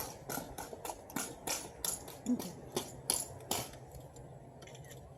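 Drill team's rifles being spun, slapped and caught in a line drill: a quick, irregular run of sharp slaps and clacks, about a dozen in three and a half seconds, then it thins to a few faint ticks.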